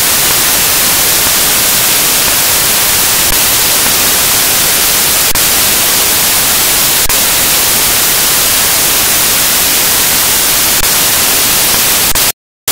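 Loud, steady static hiss like white noise, with a few faint clicks scattered through it, cutting off abruptly near the end.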